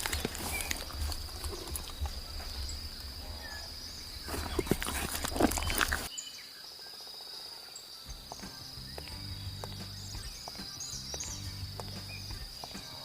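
Layered outdoor sound-effect ambience: a steady high insect-like trill runs throughout over scattered light clicks and knocks. The sound changes abruptly about six seconds in, and from about eight seconds a low steady music-like drone joins, with faint chirps above it.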